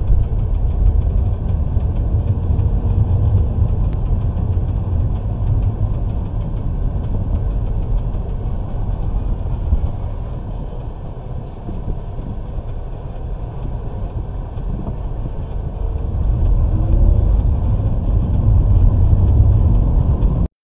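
Steady low rumble of a vehicle's engine and road noise, heard through a dash camera's microphone, growing louder over the last few seconds.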